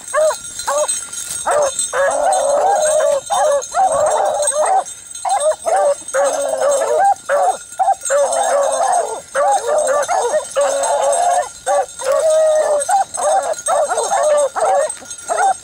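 Pack of beagles baying, several hounds giving voice over one another in long arching bawls almost without a break. This is the cry of rabbit hounds running a scent trail.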